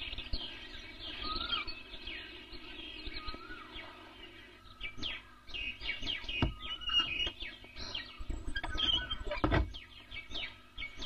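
Birds chirping, a steady run of short, quick calls that grows busier about halfway through, with two dull low thumps, one a little past the middle and one near the end.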